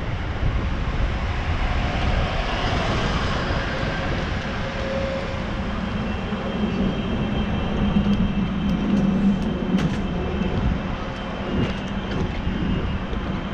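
Wind buffeting a camera microphone on a moving bicycle, with road and traffic noise. A vehicle's engine hum rises from about six seconds in and is loudest around eight to nine seconds.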